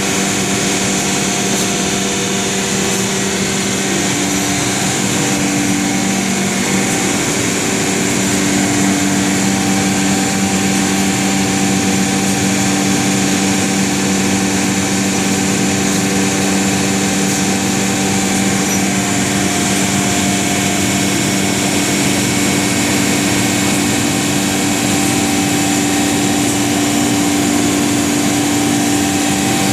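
Weeke CNC router running steadily while cutting: a continuous machine drone with a high spindle whine, its tones shifting slightly about five seconds in.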